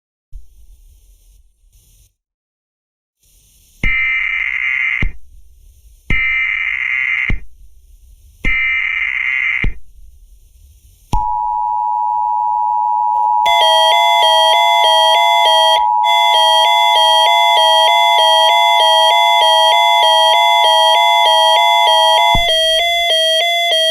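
Emergency Alert System broadcast tones: three one-second bursts of screechy digital header data, each followed by a pause. About 11 seconds in, a steady alert tone begins. About two seconds later a repeating chime-like melody of stepped tones joins it and plays on after the steady tone cuts off near the end.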